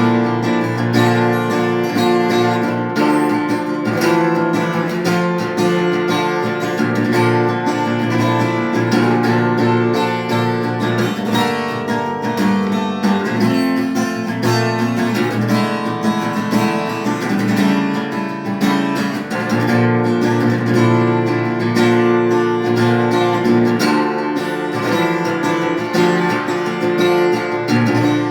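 Acoustic guitar playing continuously, with plucked and strummed chords.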